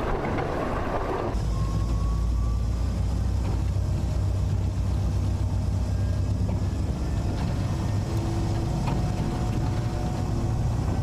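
Bidulgi-ho diesel train: a rattling running noise that cuts off abruptly about a second in, leaving a steady low diesel engine hum at idle.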